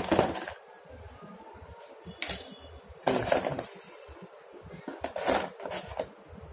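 Small hard parts and tools clinking and clattering as they are handled and set down while a refrigeration repair tool bag is sorted, a handful of separate knocks spread over several seconds.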